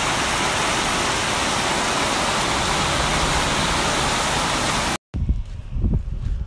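Floodwater rushing steadily, a dense, even roar. It cuts off suddenly about five seconds in, and a quieter stretch with a few low thumps follows.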